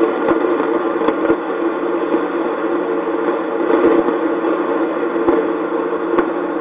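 Westinghouse RA/DA regenerative radio giving a steady hum and static with a few faint crackles while its tickler knob is turned: the station has dropped out to noise, which the owner puts down to touchy loose connections in the set.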